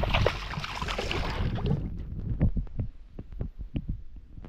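Spurdog thrashing at the surface beside the boat, splashing water for about the first two seconds, followed by a run of irregular soft knocks and low thumps.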